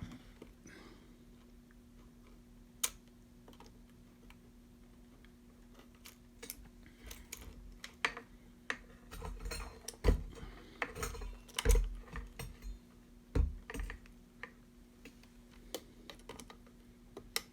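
Scattered clicks, taps and knocks of hands working inside a Robot Coupe MP 600 food processor's base, pulling wire connectors off their terminals. The handling gets busier from about six seconds in, with a few heavier thumps between ten and fourteen seconds, over a low steady hum.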